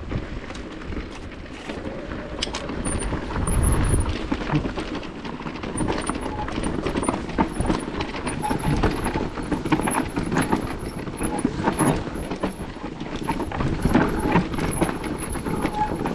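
Santa Cruz Heckler electric mountain bike rattling down a rough trail: a dense, irregular run of knocks and clatter from tyres, suspension and frame over the ground, with a low rumble of wind on the microphone about four seconds in.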